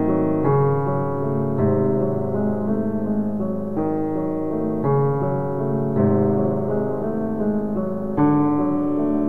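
Slow background piano music: sustained chords, with new ones struck every second or two.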